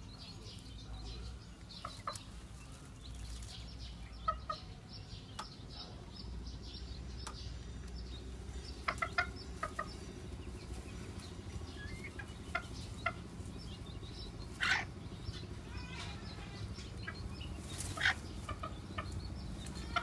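Bantam chickens clucking: short, scattered clucks, with two louder ones in the second half.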